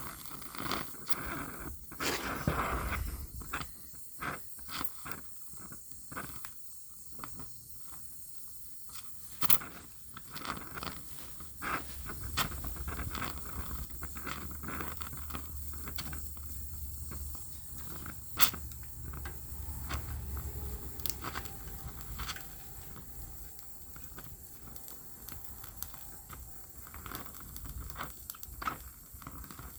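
Welder crackling in short bursts and one longer run in the middle, welding a car's sheet-metal sill panel, with sharp clicks and scrapes of metal in between.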